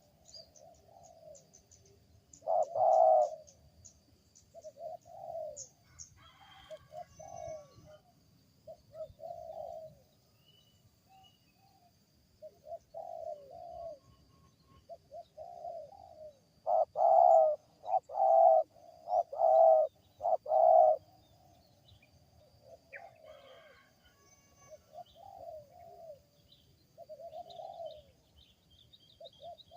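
Wild spotted dove (tekukur) cooing in repeated phrases of several notes, with a loud run of coos about two-thirds of the way through; the bird is found to have an unusual, strange-sounding call. Small birds chirp faintly and high-pitched in the background.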